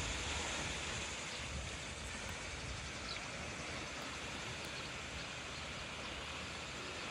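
Small waves washing steadily onto a sandy shore with scattered rocks.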